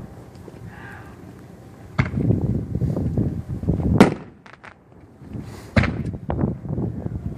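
Aerial fireworks bursting: three sharp bangs about two, four and six seconds in, the middle one the loudest, each trailed by a rumbling crackle that dies away over a second or so.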